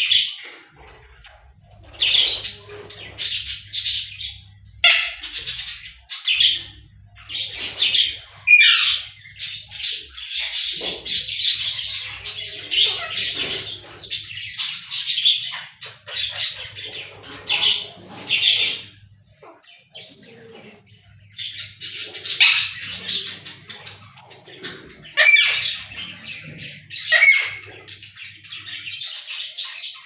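Pet parrots chattering in a run of short, shrill chirps and squawks, pausing briefly about two-thirds of the way through.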